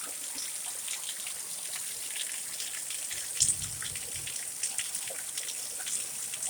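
Rain falling in a storm, with many drops striking close to the microphone as sharp ticks over a steady hiss. A single low thump about three and a half seconds in.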